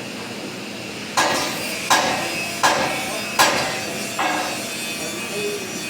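Hammer striking metal five times at an even pace, about one blow every three-quarters of a second, each blow ringing briefly.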